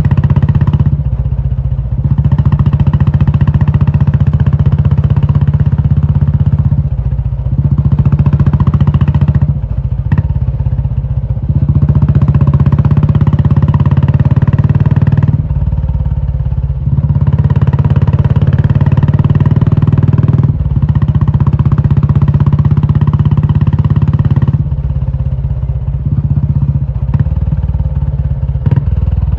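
Royal Enfield Classic 350's single-cylinder engine running loud through an aftermarket Indore exhaust, with a deep steady exhaust note. Every few seconds it eases off briefly, then comes back in at full loudness.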